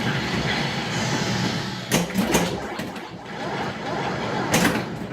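White Water pinball machine in play: a steady mechanical din from the playfield, with sharp clacks about two seconds in, again just after, and near the end.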